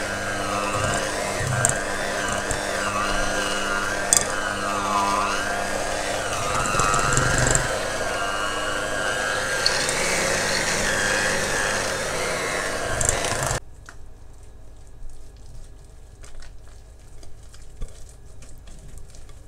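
Small electric kitchen appliance motor running, its pitch wavering as it works, then switched off abruptly about two-thirds of the way in. Light clinks of bowls and utensils follow.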